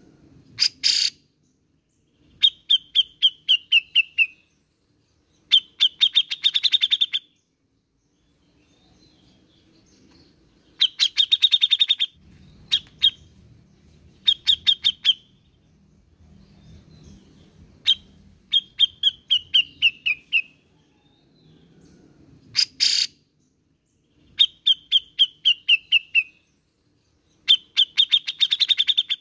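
Cucak jenggot bulbul (Alophoixus bres) singing: repeated bursts of rapid, high chattering notes, each a second or two long with short pauses between, several of them falling slightly in pitch. A few single harsher notes cut in, about a second in and again a little over twenty seconds in.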